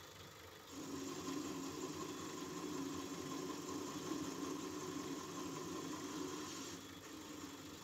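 Myford lathe running steadily, turning a cast-iron cylinder cover; the noise of the tool cutting comes in about a second in and drops away shortly before the end.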